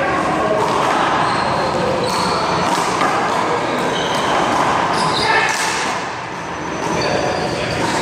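Handball rally: a small rubber handball is struck by hand and smacks off the wall and ground several times, in sharp slaps over a steady background noise.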